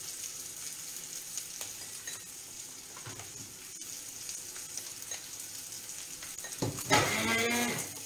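Octopus tentacles frying in oil in a pan, a steady sizzle with fine crackles. A woman's voice comes in loudly near the end.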